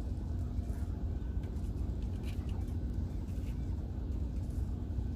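Faint, steady hum of the crab fishing vessel Northwestern's diesel engines running at the dock, a low rumble with a steady tone over it.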